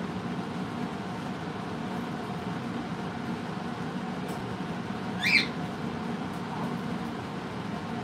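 A parrot gives one short, high squeak about five seconds in, over a steady machine hum.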